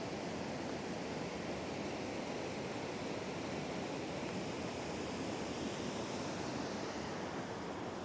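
Steady rushing of a waterfall in spring meltwater, cascading over rock into a pool.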